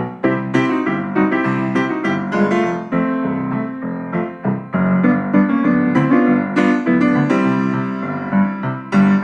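Piano music: a melody of many separate notes over sustained chords.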